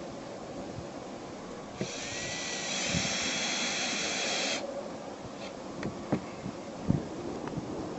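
Power drill spinning up with a rising whine and running for about three seconds, driving a screw through the aluminium roof patch; a few light knocks follow.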